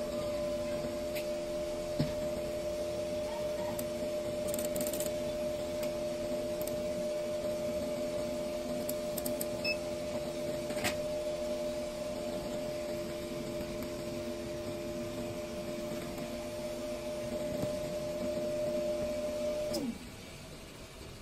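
Steady electric hum of a small motor or fan, several pitches held together, that switches off about twenty seconds in, its pitch sliding down as it stops.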